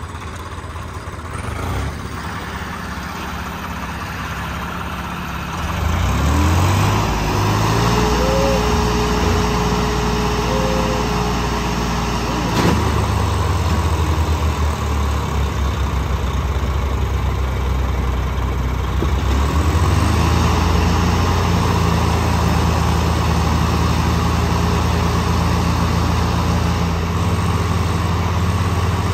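Diesel tractor engines running, revving up sharply about six seconds in and staying at high revs, with a steady whine for a few seconds after the rev-up.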